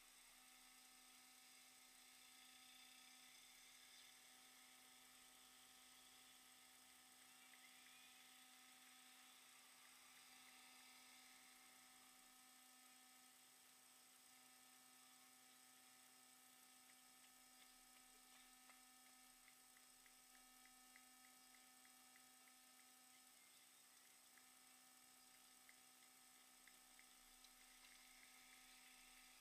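Near silence: a faint steady electrical hum with a few thin steady tones, with a scatter of faint ticks in the second half.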